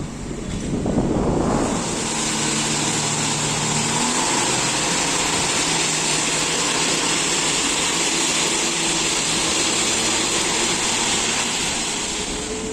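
Steady rushing noise of a moving suburban electric train, with wind and running noise that swells to full strength about a second and a half in and then holds, a faint low hum beneath.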